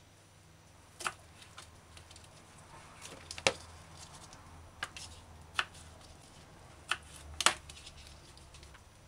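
Kitchen knife cutting cucumber slices into quarters on a plastic cutting board: about six sharp taps of the blade on the board, spaced roughly a second apart.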